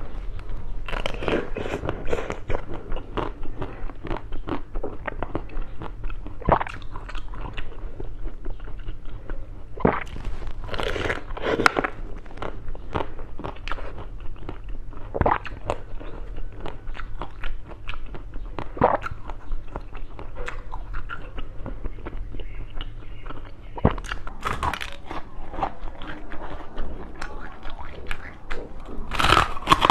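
Close-miked eating of hard frozen food: a string of sharp crunching bites with chewing in between, loudest about ten seconds in and again near the end.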